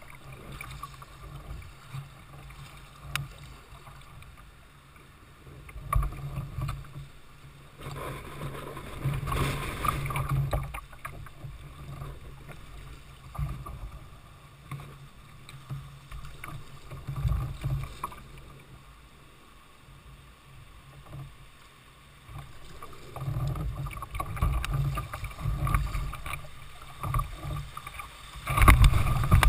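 Water splashing and rushing around a kayak running a river, coming in irregular surges, loudest near the end as the kayak enters a rapid of whitewater.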